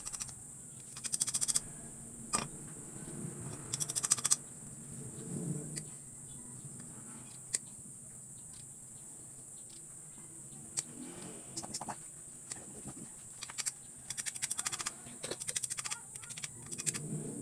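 A hand tool working the screws and fittings of a small motorcycle carburetor: short bursts of rapid metallic clicking, several times over, with a few single clicks and light knocks between them.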